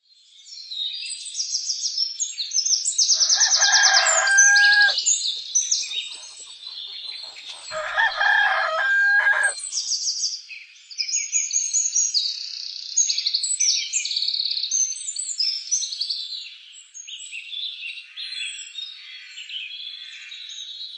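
Many small birds chirping and twittering continuously, with a rooster crowing twice, about three and eight seconds in.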